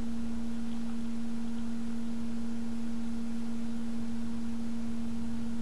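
Steady electrical hum: one constant low-pitched tone with a fainter tone an octave above it, unchanging throughout.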